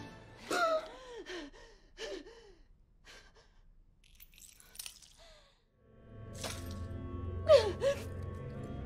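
Film soundtrack: a woman's short gasps and strained cries in a violent struggle. After a quiet stretch, a low music drone swells in about six seconds in under more sharp gasps.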